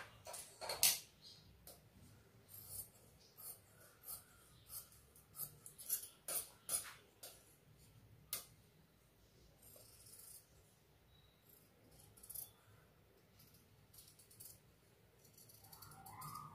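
Large tailor's shears snipping through blouse fabric: a run of short crisp snips, coming thickly in the first half and more sparsely after.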